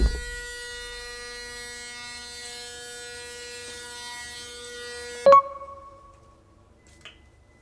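Electric shaver running with a steady buzzing hum, cut off by a sharp knock with a brief ringing decay about five seconds in. A faint click follows near the end.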